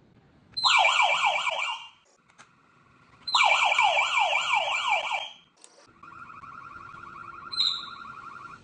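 Electronic home alarm siren: two loud bursts of about one and a half to two seconds, each a run of rising sweeps at about four a second. Then, about six seconds in, a quieter and faster warbling tone that keeps going, with a short high beep near the end.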